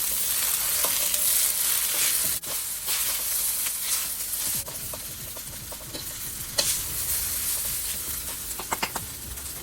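Egg noodles, chicken and vegetables sizzling in oil in a hot wok as they are stirred and tossed together, with occasional clicks of the utensil against the wok. The sizzle is a little softer from about halfway through.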